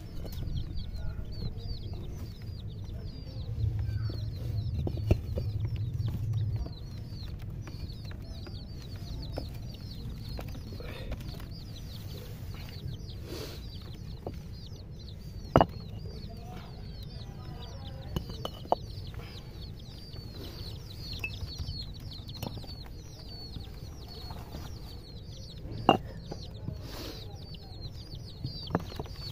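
Baby chicks peeping continuously: many short, high cheeps, each falling in pitch. Under them runs a low rumble, louder for a few seconds near the start, with a few sharp clicks.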